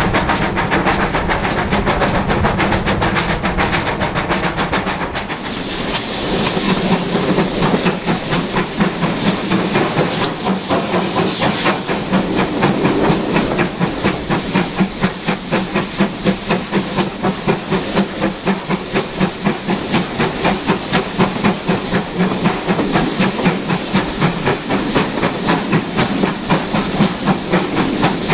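GWR Manor class two-cylinder 4-6-0 steam locomotive 7822 Foxcote Manor under way, its exhaust beating in a quick, even rhythm over the rattle of the carriage wheels. A loud steam hiss joins about five seconds in and carries on.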